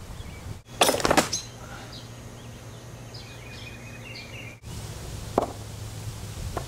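Wooden torsion catapult firing: the rope-sprung throwing arm whips up and slams into the crossbar with a loud wooden bang about a second in. Birds chirp faintly afterwards, and a shorter, fainter knock comes near the end.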